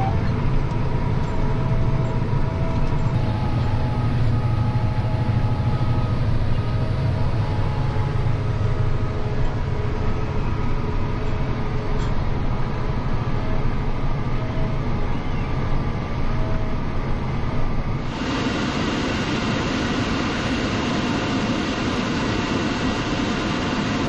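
John Deere 8270R tractor engine running steadily under load, heard from inside the cab while pulling a seed drill: a low drone with faint steady whines over it. About 18 seconds in it changes abruptly to an even rushing hiss of wind on the microphone outside.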